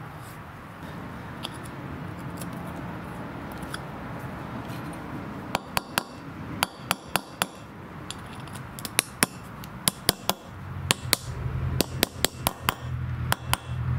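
Hammer tapping lightly on the steel hub bore of a lawn tractor's front wheel, a run of sharp metallic taps in quick irregular clusters beginning about halfway through. The taps close the bore up so a ball bearing, fitted in place of the old bushing, sits tight.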